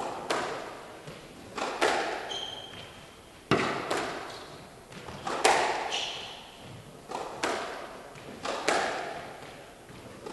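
A squash rally: the hard rubber ball is struck by rackets and smacks off the walls in sharp, echoing knocks every second or two, some in quick pairs. Short squeaks from court shoes on the wooden floor come in between.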